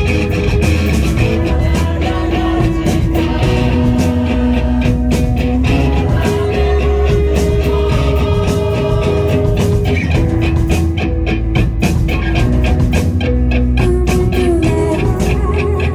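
A rock band playing live, with electric guitars holding long melodic notes over bass and drums.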